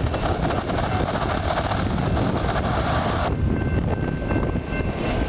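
Autorack cars of a long freight train rolling past, a steady rumble mixed with wind buffeting the microphone. A brighter hiss over the rumble cuts off suddenly a little over three seconds in.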